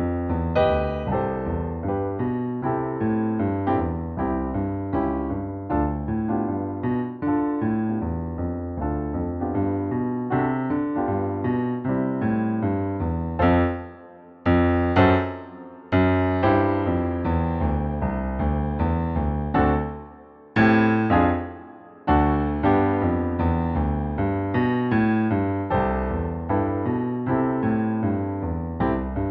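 Solo piano music, a steady run of notes, with short breaks about fourteen, sixteen, twenty and twenty-two seconds in.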